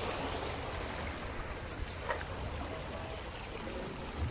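Steady wash of sea water lapping at the shore, with a low rumble underneath and a faint tick about two seconds in.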